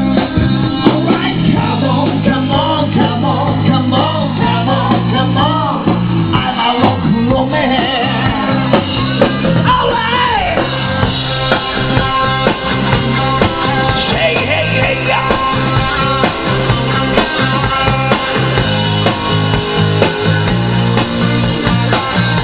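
Rock music: a song with singing, electric guitar and a steady drum beat.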